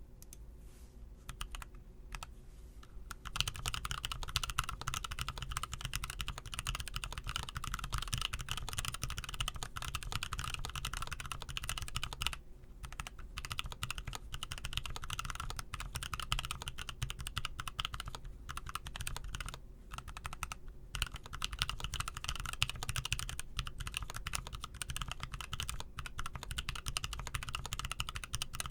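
Typing on a Niu Mini 40% mechanical keyboard with lubed T1 Skies tactile switches (Outemu Sky tops on T1 housings, stems and springs). A few separate keystrokes at first, then fast continuous typing from about three seconds in, with two short pauses.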